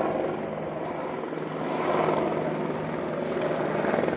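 A steady engine-like drone with a constant low hum, under a rustling noise.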